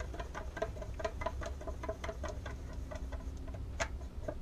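Pearl white paint being stirred in a small cup: the stirrer clicks against the cup about five times a second, with one sharper click near the end.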